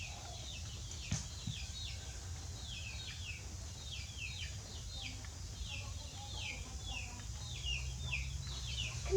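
Chickens chirping: a steady run of short, high, falling chirps, about two or three a second, over a low steady rumble.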